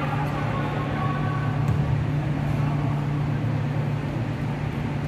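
Steady low drone under an even wash of background noise, with faint distant voices near the start: the ambience at a basketball court during a game.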